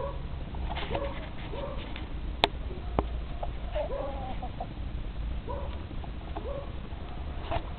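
Chickens clucking: short low calls, often in pairs, every second or so. Two sharp clicks come about two and a half and three seconds in, over a steady low rumble.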